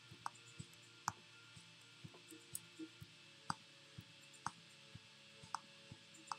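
Irregular sharp clicks from hands working a computer, roughly two a second, over faint steady background tones.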